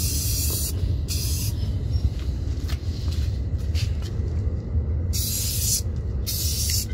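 Rust-Oleum 2X Ultra Cover aerosol spray-paint can hissing in short bursts: one at the start, a brief one about a second in, then two more near the end after a pause of several seconds. A steady low rumble runs underneath.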